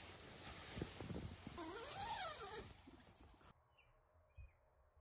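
Sleeping bags and air mattress rustling and thumping as someone climbs onto them, with a short wavering voiced sound that rises and falls in pitch. About three and a half seconds in it drops abruptly to quiet night air with a few faint, short high chirps.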